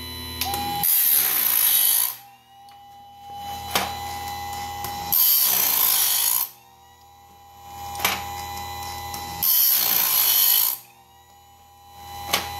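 Modified Harbor Freight chainsaw sharpener grinding bandsaw blade teeth. Its wheel runs with a steady whine and bites the blade in three loud grinding passes of just over a second each, about four seconds apart. A sharp click comes between each pass.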